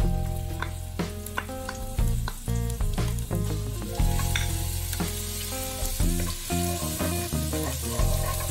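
Minced garlic sizzling in hot oil in a wok as it goes in and is stirred with a wooden spatula, over background guitar music with a steady bass line.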